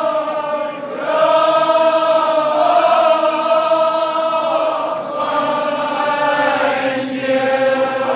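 Male voices chanting a Kashmiri marsiya, a mourning elegy, in long drawn-out sung notes. There are brief breaks between phrases about a second in and again around five seconds.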